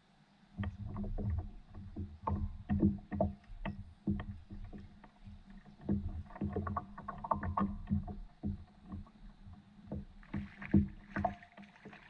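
Irregular hollow knocks and water slapping against a fishing paddleboard's hull as a fish is fought from it, starting about half a second in. Near the end comes a splashy hiss as the fish thrashes at the surface.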